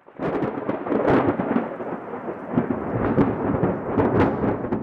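Thunder sound effect: a continuous rumble broken by repeated sharp cracks.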